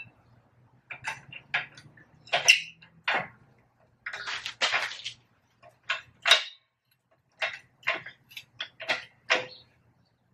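Irregular metal clanks and knocks, about a dozen sharp strikes, some ringing briefly, from tools and metal parts being handled, loudest about two and a half and six seconds in.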